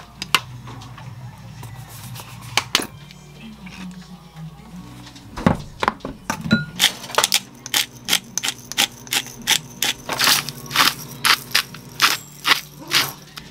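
Wooden spoon stirring cherry tomatoes in dressing in a glass mixing bowl, knocking against the glass. There are a few scattered clicks at first, then from about halfway through a quick, regular run of about two to three knocks a second.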